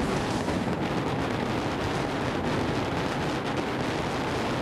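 Dense barrage of professional fireworks shells launching from mortars and bursting overhead. The reports run together into a steady rumble with constant crackle and no single standout bang.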